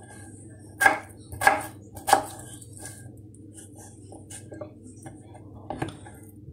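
Kitchen knife chopping raw potato into cubes on a wooden cutting board: three sharp knocks of the blade hitting the board about two-thirds of a second apart, then lighter, scattered cuts and one more knock near the end.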